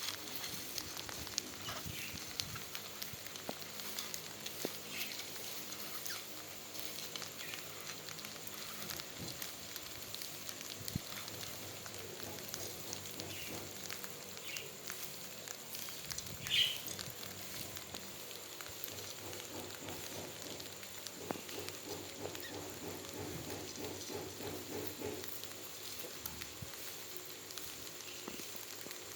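Soft, continuous crackling of albino rats nibbling and gnawing at their food, with a short high chirp about halfway through.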